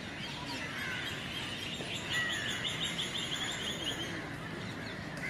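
Small birds chirping and calling in the trees, with a fast trill of repeated high notes from about two seconds in until about four seconds in.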